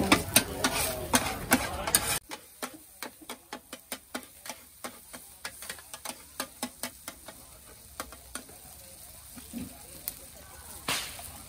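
A metal spatula clanging and scraping against a large flat wok while fried radish cake is stir-fried, with voices over it. About two seconds in the background drops away abruptly, and quieter spatula clanks carry on a few times a second.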